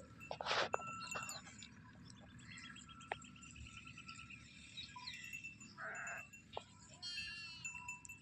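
Small birds chirping and trilling in the background, with one rapid trill lasting about a second and a half. A short rustling or scraping noise comes about half a second in, the loudest moment, and a softer one near six seconds.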